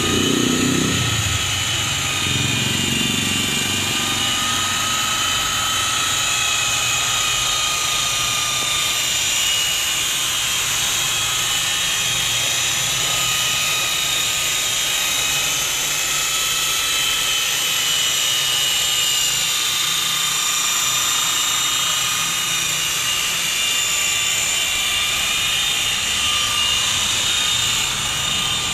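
Corded rotary polisher with a foam pad running steadily against car paint during paint correction: a steady high electric motor whine whose pitch wavers slightly.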